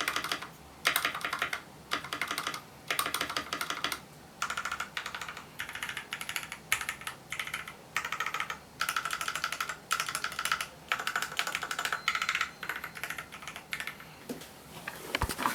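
Fast typing on a custom mechanical keyboard with lubed and filmed Gateron Milky Yellow linear switches on a brass plate in an aluminium case: rapid runs of keystrokes about a second long, with short pauses between them.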